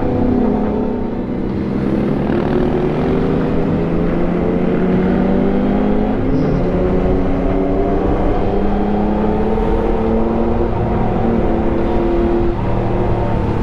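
Sport motorcycle engine running under way, its note slowly rising and falling with the throttle, with a short dip near the end.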